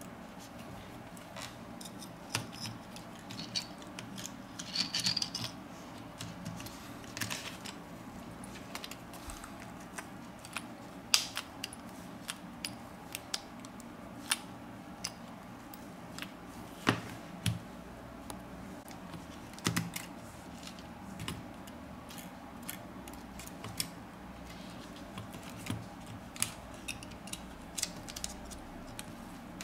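Irregular small clicks and taps of plastic and metal phone parts and small tools being handled as a smartphone is put back together, over a faint steady hum.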